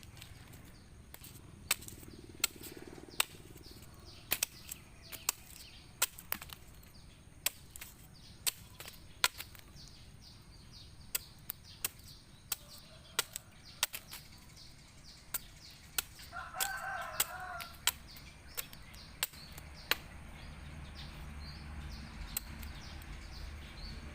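A blade whittling the cut end of a plant stem to a point: sharp cutting clicks at irregular intervals, about one or two a second. About two-thirds through, a rooster crows once.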